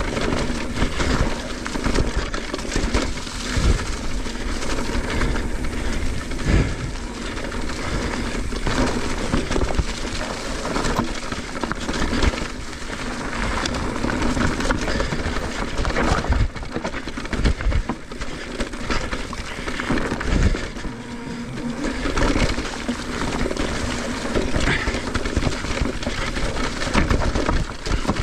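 Mountain bike riding fast down a dirt flow trail: a continuous rush of wind and tyre noise, with frequent knocks and rattles from the bike over bumps.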